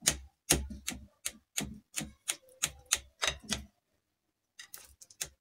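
Metal serving utensil clicking against a glass baking dish as set pudding is cut and scooped out, about three sharp knocks a second, stopping for about a second before a few quicker clicks near the end.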